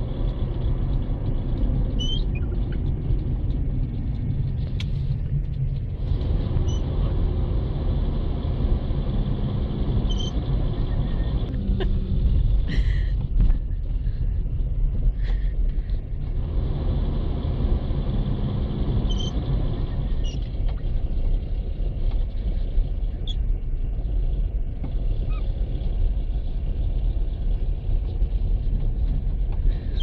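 Road rumble inside a moving car's cabin, steady and low, with a few short high chirps scattered through it.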